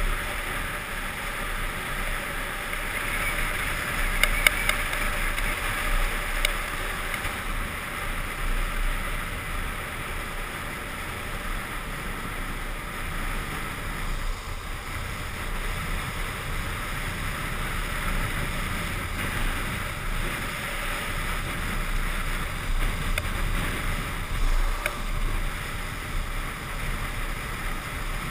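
Wind rushing over the microphone and urethane longboard wheels rolling on asphalt at downhill speed, a steady noise, with a few sharp clicks about four seconds in, at six seconds and near the end.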